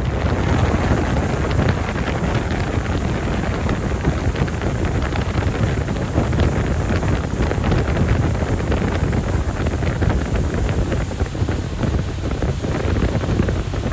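Strong wind buffeting the microphone: a loud, steady rumble that rises and falls in gusts.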